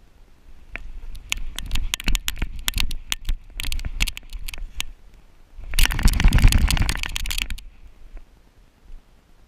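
A giant schnauzer moving through dry fallen leaves, heard from a GoPro on its back harness: irregular crackling and scuffing of paws in the leaf litter, with the camera mount knocking. About six seconds in comes a louder, denser rustle and rush lasting nearly two seconds, then it goes quieter.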